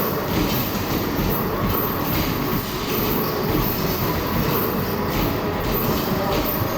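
Arcade basketball machine in play: a steady, dense rumble and clatter of basketballs rolling down the return ramp and knocking against the machine, under the general din of the arcade.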